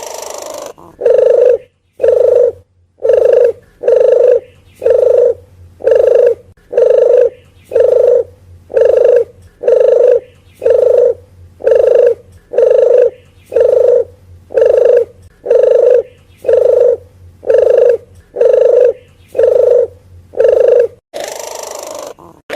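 Red collared dove (puter geni) cooing: a long, even run of short coos, about one per second. The run ends about 21 s in, and a longer, rougher call takes over.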